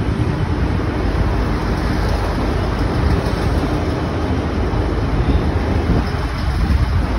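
V/Line Sprinter diesel multiple unit running past along the platform: a loud, steady rumble of its diesel engines and steel wheels on the rails, thinning out about six seconds in as the last car goes by.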